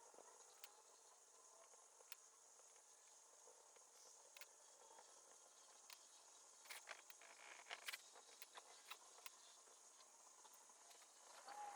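Near silence: faint room tone with scattered light clicks and taps, a little busier in the second half.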